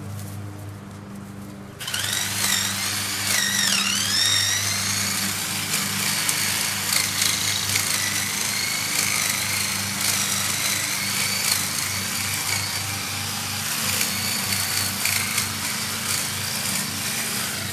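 A power saw motor starts suddenly about two seconds in and runs at high speed with a high whine, which dips sharply once under load and then holds fairly steady with small wavers. A low steady hum runs underneath.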